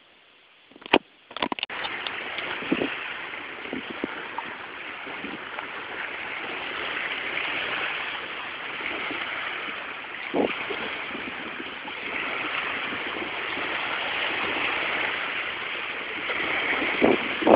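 Hurricane wind and choppy storm-surge floodwater: a steady rushing noise that starts about a second in after a few sharp knocks, with a few thumps along the way.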